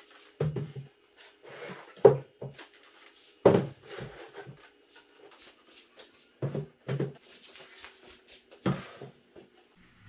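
Speaker cabinets being lifted and set down on top of one another: about six separate hollow knocks and thuds, with shuffling in between.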